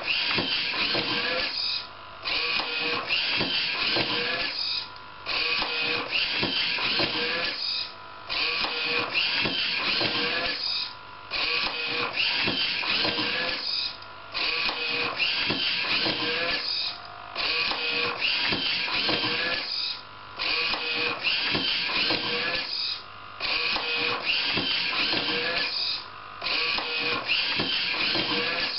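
DIY fully automatic book scanner running its page-turning cycle: motors and mechanism whirring and clattering, turning page after page. The cycle repeats about every three seconds, each broken by a short, quieter pause.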